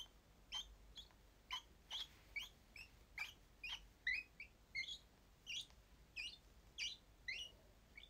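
Month-old lovebird chick giving short, faint chirps, about two a second, in a steady series.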